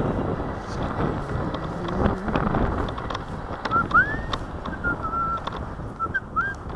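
Wind buffeting the microphone, with a few short whistled notes in the second half, one sliding sharply upward about four seconds in.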